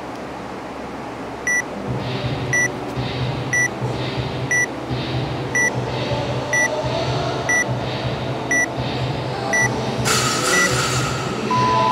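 Workout timer counting down: ten short, high beeps one second apart, then a longer, lower beep that signals the start of the workout. Background music with a steady beat comes in shortly before the beeps begin.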